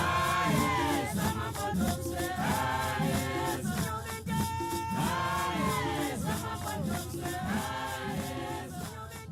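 Background music: voices singing together over a steady shaker rhythm, slowly fading out.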